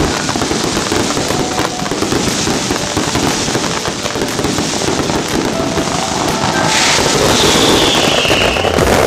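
Ground-level fireworks fountains and cakes going off close by: a loud, dense, continuous crackling and popping of sparks and shots. A brief falling whistle sounds about seven seconds in.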